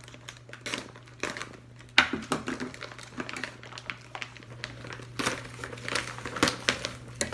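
Thick plastic MRE pouch crinkling and crackling in the hands as it is worked at and pulled open, in irregular bursts with a sharp crackle about two seconds in.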